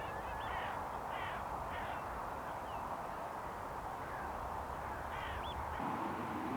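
Several wild birds giving short, harsh calls that bend up and down in pitch. There is a cluster of calls at the start and another call about five seconds in, over a steady background hiss.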